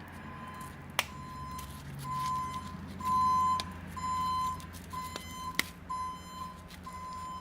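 Two sharp clicks from a 24 ligne (15 mm) metal ring snap being snapped, about a second in and again about five and a half seconds in. Under them run a steady low hum and a louder steady beeping tone that comes and goes in pulses of uneven length.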